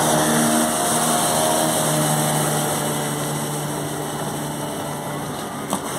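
Engine of a loaded wooden river cargo boat running steadily as it gets under way, a low hum that grows slowly fainter.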